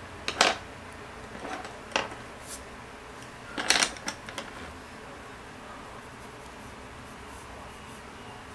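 Wooden coloured pencils clicking and clattering against one another as one is set down and another is picked out of the pile. There are a couple of sharp knocks in the first two seconds and a louder cluster of clicks about four seconds in, then only a steady faint hiss.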